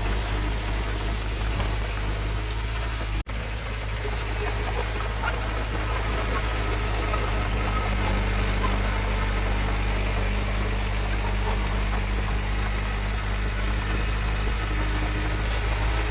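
Heavy-equipment diesel engine running steadily, with a momentary drop-out in the sound about three seconds in.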